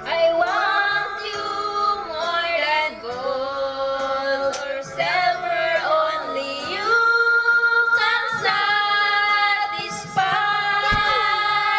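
Two women singing a song together, one into a handheld microphone, with long held notes.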